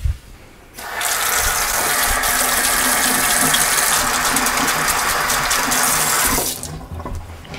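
Kitchen sink tap running while hands are washed under it: the water comes on about a second in, runs steadily, and is shut off near the end.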